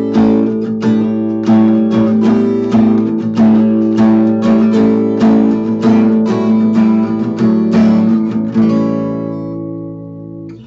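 Acoustic guitar being picked and strummed in a steady pattern of chords, recorded through the Logitech C922 webcam's built-in microphone as a sound test. The playing stops near the end and the last chord rings out and fades.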